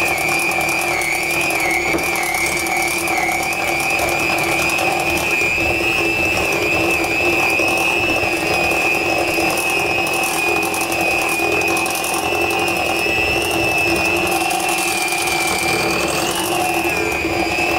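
Electric hand mixer running steadily, its beaters turning through thick cookie dough, with a steady high motor whine.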